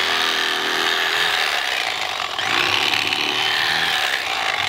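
Corded electric fillet knife running, its reciprocating blades buzzing as they cut into a channel catfish behind the head. The motor's whine dips in pitch briefly about halfway through and again near the end as the blade works through the fish.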